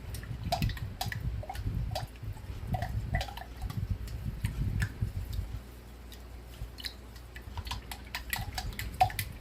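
Water being swirled inside an open snow globe to spin the snow and glitter down, with a low rumble of handling and many small clicks and taps, one sharper click near the end.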